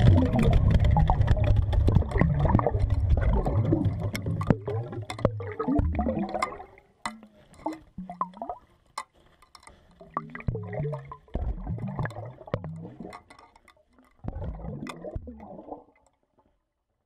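Water gurgling and sloshing heard by an underwater camera beneath lake ice, with many sharp clicks and knocks. It is loudest at first, then comes and goes in short patches with gaps of near silence, and dies away shortly before the end.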